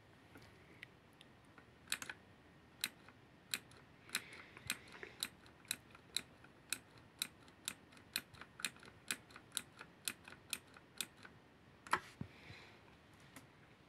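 Keys on a V900 mechanical keyboard being pressed one at a time, about two sharp clicks a second, with one louder click near the end.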